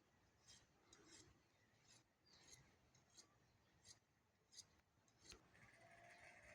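Near silence with faint sharp clicks about every two-thirds of a second, and a faint hiss near the end.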